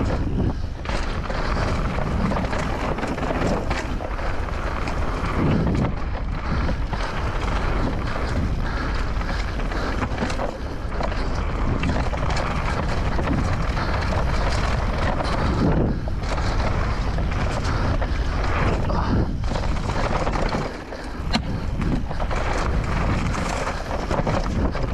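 Wind rushing over the microphone of a mountain bike descending a dirt trail, with tyres rolling over the dirt and the bike rattling over bumps. The rush is steady, with scattered short knocks and a brief lull about three-quarters through.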